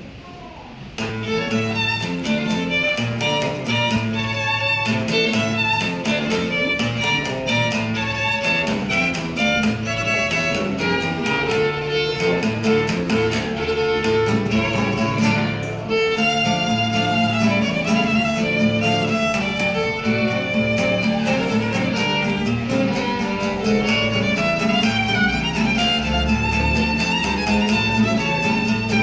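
Violin and acoustic guitar duo playing an instrumental piece, the violin carrying the tune over guitar accompaniment, coming in fully about a second in.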